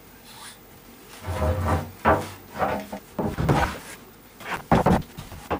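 Long wooden boards knocking and scraping against each other and the workbench as they are picked up and set down, in irregular clunks starting about a second in, with a couple of sharp knocks near the end.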